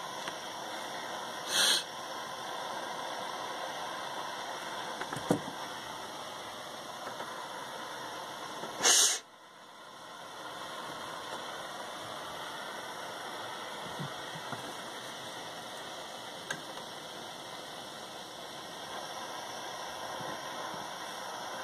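A plumbing torch flame hissing steadily as it heats a sweat joint between a brass shower valve and copper pipe, bringing it up to soldering temperature. There is a brief loud puff about two seconds in and another about nine seconds in; after the second the hiss drops away for a moment and comes back.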